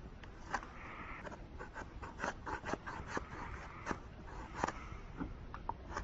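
Knife blade scraping and shaving a wooden stick in a series of short, irregular strokes.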